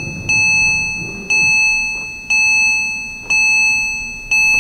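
Porsche Cayman 987 instrument-cluster warning chime ringing with the ignition on and the engine off: a bright ding about once a second, each fading before the next, five times.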